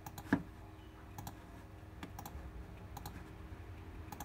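Short sharp clicks, roughly one a second with a louder one just after the start, from entering a password on a DVR's unlock screen.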